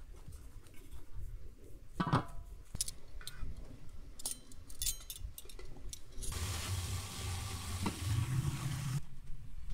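A knock and light clinks of metal cookware, then about three seconds of steady hissing with a low hum from a lidded aluminium pot on a hot stove, which starts and stops abruptly.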